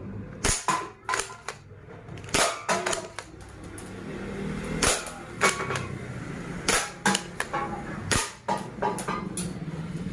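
Toy Tec-9 spring airsoft pistol being cocked and fired over and over: a dozen or more sharp plastic clacks at uneven intervals, some in quick pairs.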